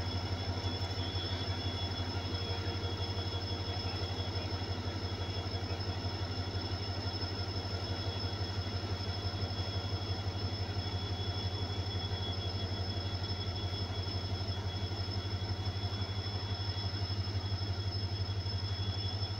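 Diesel train running steadily as it moves off slowly: a low, even throbbing hum with a faint high whine on top and no wheel clatter.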